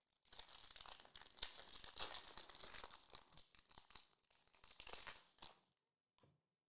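Foil wrapper of a Prizm basketball card pack being torn open and crinkled, crackling for about five seconds, with one brief rustle near the end.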